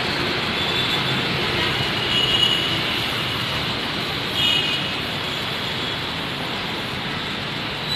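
Elevated metro train running along a curved viaduct, its steady rumble slowly fading as it pulls away. The wheels squeal briefly and high-pitched on the curve twice, about two and a half and four and a half seconds in.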